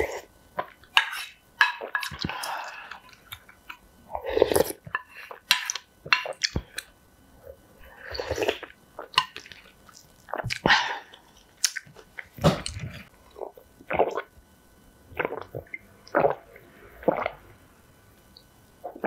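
Eating sounds of spicy noodle soup with rice: irregular slurps, chewing and mouth clicks in short bursts.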